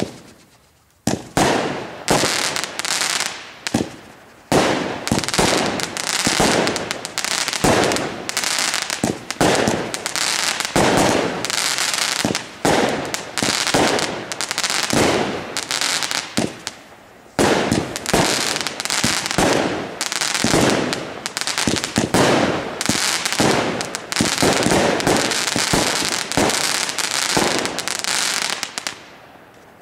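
A 25-shot, 0.75-inch consumer fireworks cake firing. The first shot goes off about a second in, then launches and bursts follow in quick, overlapping succession with a dense crackle, and the volley fades out near the end.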